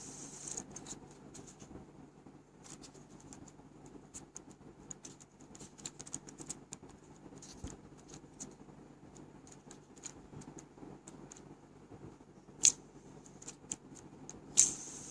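Handling noise of a small hand-held object: irregular light clicks and scratches, with two sharper clicks near the end.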